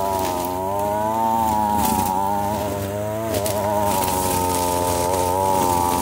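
Two-stroke petrol string trimmer running at high speed, its pitch wavering down and up several times as the line cuts through long grass.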